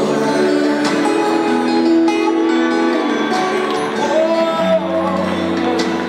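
Music of long held chords; a deep bass note comes in about three-quarters of the way through.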